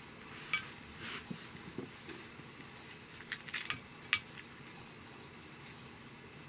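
Cat chewing and tugging at a whole grilled sardine: a scatter of small crisp crunches and clicks, thickest a little over three seconds in, with a few soft knocks.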